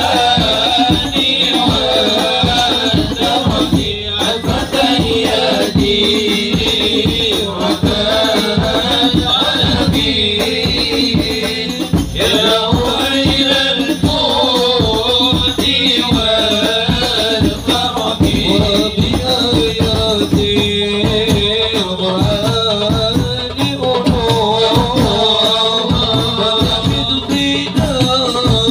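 Devotional group chanting by men's voices over fast, continuous hand-drum percussion with jingles, the kind of hadrah music sung for the Prophet's birthday.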